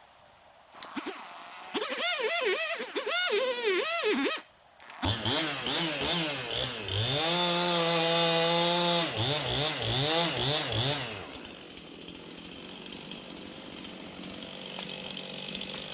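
Chainsaw engine revving up and down in repeated bursts, held at high revs for about two seconds midway, then dropping back to a lower, quieter run near the end.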